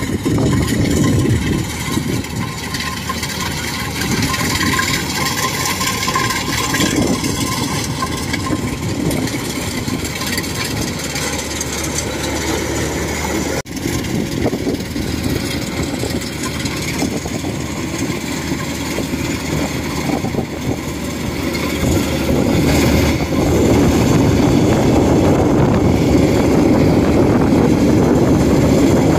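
Thai-built 105 rice combine harvester running under load as it cuts and threshes ripe rice: a steady mechanical drone with a brief drop about halfway through, louder in the last few seconds.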